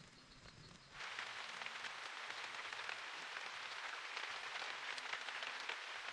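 Steady rain falling, a dense patter of many small drops, starting abruptly about a second in.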